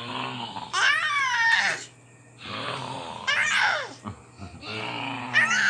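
Children's breathy, panting laughter and high, swooping squeals in three bouts, with gasping breaths between them.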